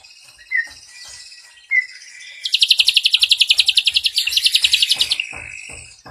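Ashy drongo singing: two short chirps, then a loud, rapid, high trill of about a dozen notes a second that lasts about three seconds, with a brief break partway through.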